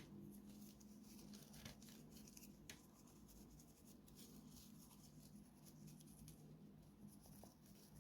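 Near silence: faint rustling and scratching of small objects being handled, with a couple of light clicks, over a low steady hum.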